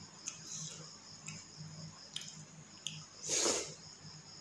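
Eating by hand: fingers mixing rice and mutton curry on a plate with soft wet squishes and small clicks, and chewing, with one louder wet smacking noise about three seconds in over a low steady hum.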